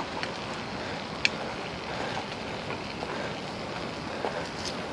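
Meat frying in a pan over a campfire, a steady sizzle, with a few clicks and scrapes of a utensil stirring it in the pan, the sharpest click about a second in.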